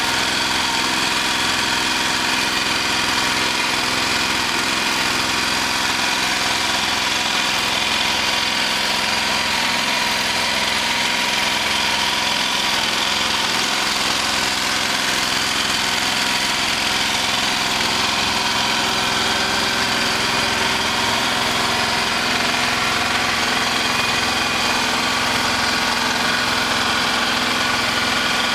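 A boat's engine running steadily while under way, a constant drone of several steady tones with no change in speed or pitch.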